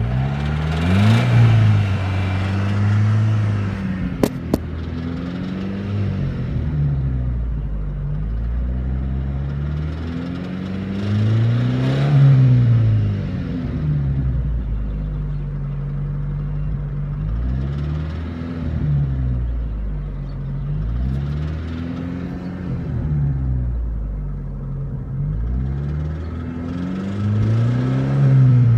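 Car engine idling and briefly revved several times, with the hydraulic valve lifters knocking. There are two sharp clicks about four seconds in.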